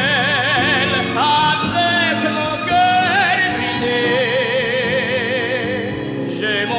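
Film score music: a melody with a strong, wavering vibrato over sustained accompanying chords.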